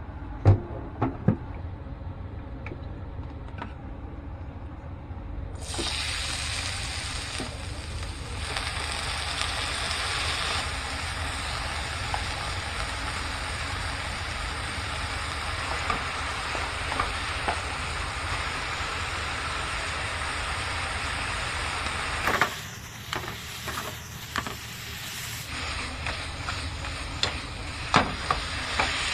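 A few clicks and knocks of handling, then a frying pan of shiitake mushrooms and shredded vegetables sizzling steadily in hot oil. It briefly drops away, then resumes, with a wooden spatula knocking and scraping against the pan as the mixture is stirred.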